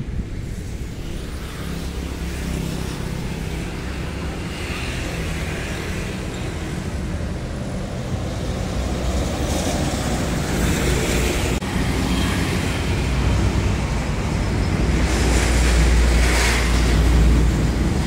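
Road traffic going by: a steady low rumble, with passing vehicles swelling up and fading several times.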